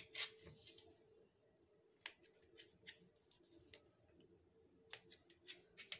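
Faint scattered clicks and scrapes of a steel knife cutting through soft mango kalakand, its blade now and then touching the steel plate beneath.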